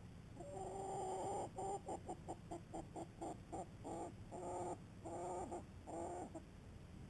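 Hen clucking: one drawn-out call, then a quick run of short clucks at about four or five a second, then three longer calls.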